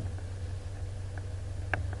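Off-road four-wheel-drive vehicle running with a steady low rumble, with a few sharp knocks and clicks, the loudest about three quarters of the way through.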